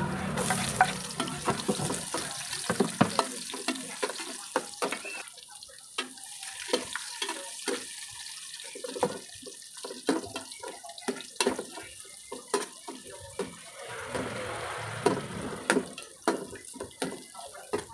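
Garlic and red onion sizzling in a hot aluminium pot, a hiss with frequent sharp crackles, and the scrapes and knocks of a spatula and ladle stirring against the pot.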